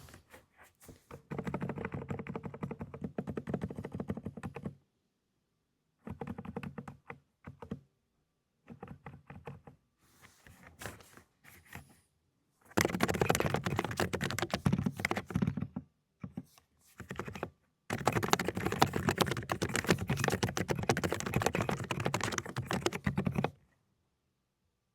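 Fast typing on a Dokgeomi mechanical keyboard fitted with silent 'cotton candy' linear switches: muted, rapid keystrokes in several runs with short pauses between them. The last two runs are the longest and loudest.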